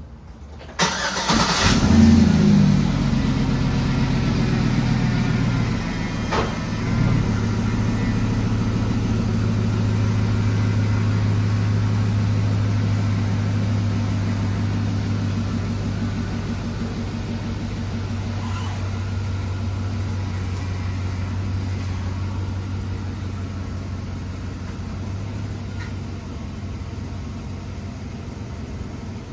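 Pickup truck engine starting about a second in, flaring briefly, then settling into a steady idle. It runs freshly oil-changed with no audible lifter tick, which the owner credits to the new oil.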